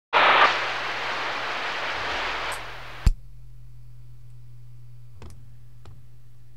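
CB radio receiver on channel 6 giving out a loud rush of static hiss for about three seconds, which cuts off with a sharp click. A steady low hum remains, with two faint clicks near the end.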